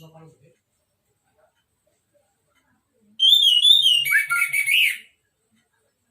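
Orange-headed thrush singing one loud phrase of quick, varied whistled notes, lasting about two seconds, beginning about three seconds in after a pause.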